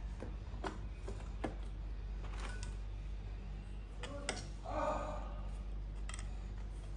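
Scattered light clicks and taps of a steel screwdriver against a porcelain LV transformer bushing and its copper stud as the blade is worked into the gap around the stud, with a short scrape about two-thirds of the way in. A steady low hum runs underneath.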